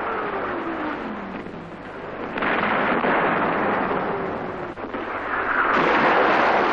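Battle sound effects on an old film soundtrack: a continuous rushing roar with whistles that fall in pitch. The roar jumps louder about two and a half seconds in. Near the end it swells again with a falling whistle, as truck-mounted rocket launchers fire a salvo.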